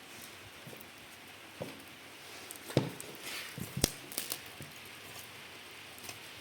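Scattered light clicks and knocks, with a cluster of sharper knocks in the middle.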